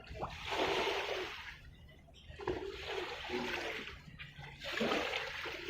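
Sea waves washing in, three surges of rushing water about two and a half seconds apart.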